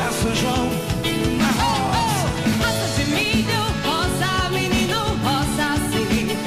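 Live forró band music with a fast, steady beat and a gliding melodic line over it.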